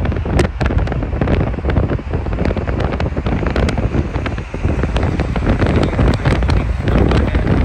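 Wind buffeting a phone's microphone from a moving car, a loud, rumbling rush with frequent crackles, over the road noise of passing traffic.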